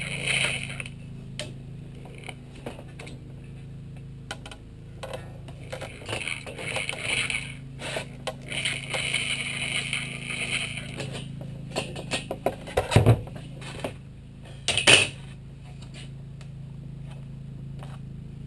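Electric sheet-metal shears cutting aluminum sheet in short runs, with a steady hum underneath. Near the end of the cutting come a few sharp clicks and two loud metallic clanks as the thin aluminum sheet is handled.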